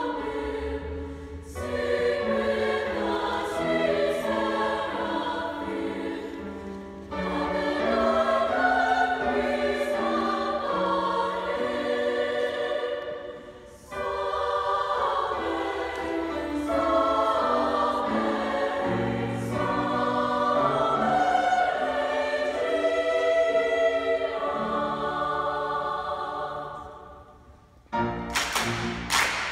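Women's choir singing a slow, sustained passage in long phrases, with short breaks between them. Near the end the singing drops away and a run of sharp, loud strikes begins.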